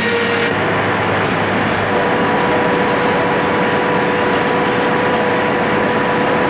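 Sawmill saw cutting through a log, a loud steady machine noise with a held whine.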